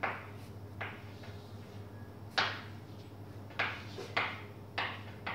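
Chalk tapping and scraping on a blackboard as symbols are written: about seven sharp, irregular taps, the loudest about two and a half seconds in, over a steady low hum.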